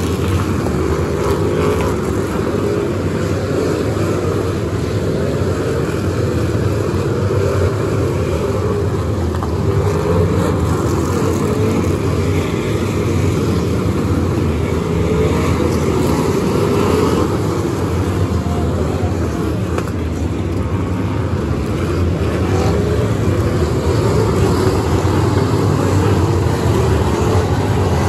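A pack of figure-8 race cars' engines running hard together at close range, making a steady, dense engine noise. The pitch keeps rising and falling as individual cars pass, accelerate and lift for the turns.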